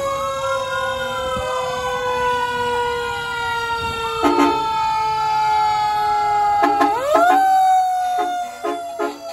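Fire truck's mechanical siren winding slowly down in pitch, then spun back up quickly about seven seconds in. Short air horn blasts sound around four seconds in and several times near the end.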